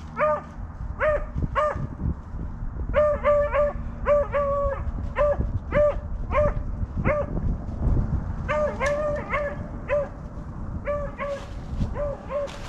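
Beagle barking over and over: short, high barks, singly and in quick runs of two to four, a few of them drawn out a little longer.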